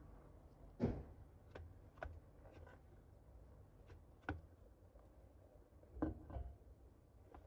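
Scattered sharp knocks and clinks of hand tools and metal parts being handled during truck repair work, the loudest about a second in and a few more following at uneven gaps.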